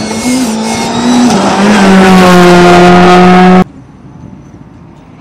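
Škoda Fabia R5 rally car's turbocharged four-cylinder engine pulling hard at full throttle, its pitch stepping up through gear changes and then held high and loud for about a second and a half. The sound cuts off suddenly about three and a half seconds in, leaving only a faint distant engine.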